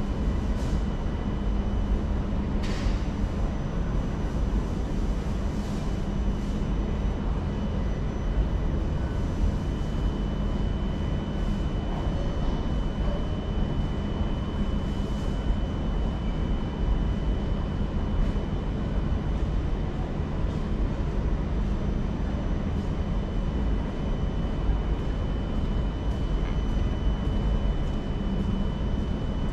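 Singapore MRT train running at speed: a steady low rumble of wheels on track with a thin steady whine above it and a few faint clicks.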